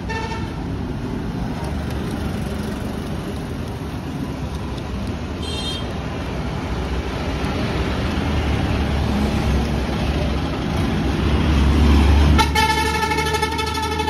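Motor vehicle engine rumble growing louder, then a vehicle horn sounding one long, steady blast near the end.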